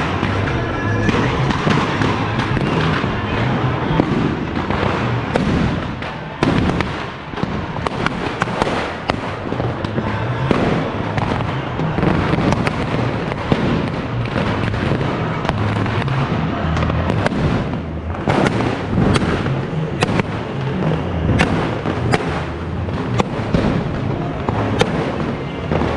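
Fireworks and firecrackers going off all around in a dense, continuous run of sharp cracks and bangs, with music playing underneath.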